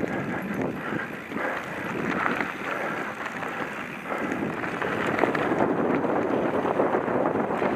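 Wind buffeting the microphone over the rumble and rattle of a mountain bike ridden along a dirt forest trail, louder about four seconds in.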